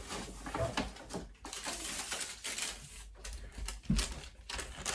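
Rustling and crinkling of a paper shopping bag, clothes and a long paper receipt being rummaged through and pulled out, with irregular light clicks and taps. A soft bump about four seconds in.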